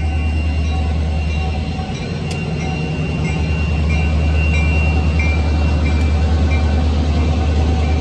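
Norfolk Southern diesel freight locomotives passing close by over a grade crossing, engines and wheels rumbling steadily, with heavy wind noise on the microphone. A faint high ringing comes and goes through the second half.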